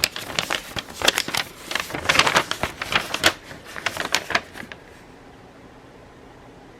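Paint-by-numbers kit contents being handled: a quick, irregular run of crinkles and clicks that stops about four and a half seconds in, leaving faint room tone.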